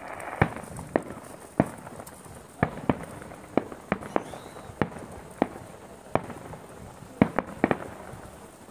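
Aerial firework shells bursting, one sharp bang every half second to a second, with a quick run of four bangs about seven seconds in.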